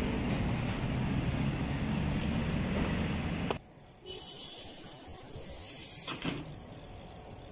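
BMX bike riding on pavement: a steady rumble of tyres that drops off sharply about three and a half seconds in, then a quieter hiss and a sharp clack a little after six seconds as the bike lands from a hop.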